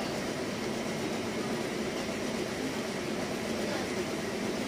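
Steady background rumble with no distinct events, its energy sitting mostly in the low-middle range.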